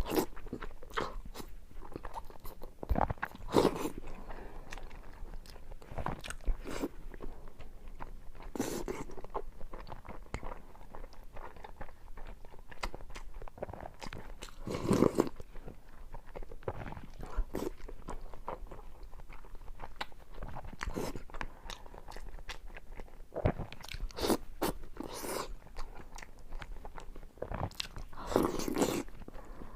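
Close-miked mukbang eating sounds: chewing and wet mouth noises of someone eating hulatang, a spicy pepper soup, with soaked egg. There are steady small clicks, and every several seconds a louder sound lasting about a second.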